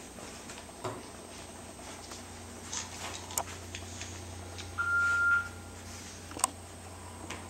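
A single electronic beep: one steady tone lasting about half a second, about five seconds in. A couple of light clicks come before and after it.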